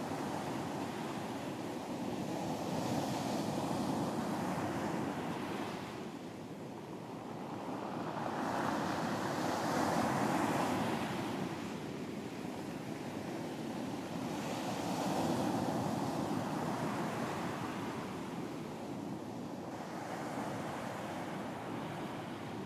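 Ocean surf washing onto a beach, the noise swelling and ebbing in about three slow surges several seconds apart.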